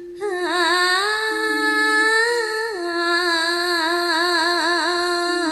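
Javanese sinden (female gamelan vocalist) singing long held notes with a wide, wavering vibrato, sung while she has a cough and cold.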